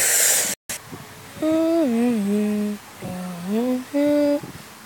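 A person humming a short tune in three or four drawn-out notes that glide down and back up. Just before it there is a brief loud hiss that cuts off suddenly into a moment of silence.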